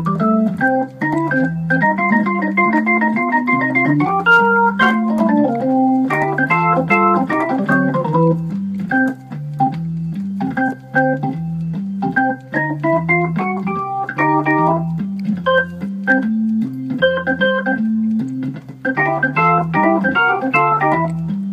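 Hammond XK-3c drawbar organ being played: a stepping bass line under chords and quick runs of notes, the upper part thinning out twice to leave mostly the bass.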